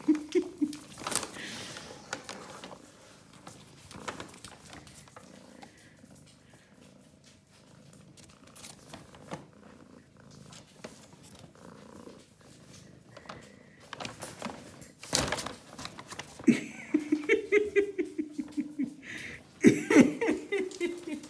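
Paper carrier bag rustling and crinkling as a cat rolls and paws about inside it, with a sharp loud crinkle about a second in and another at about fifteen seconds. Near the end come two bouts of low, fast-pulsing animal rumbling.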